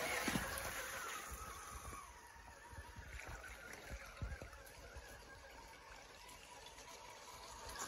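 Shallow creek water trickling and splashing around a radio-controlled scale crawler truck wading through it, louder in the first two seconds.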